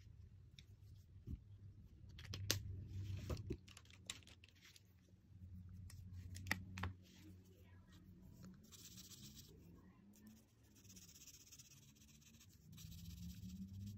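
Felt-tip alcohol marker scratching across paper in soft strokes through the second half, after a few sharp clicks of the markers being handled, loudest about two and a half and six and a half seconds in.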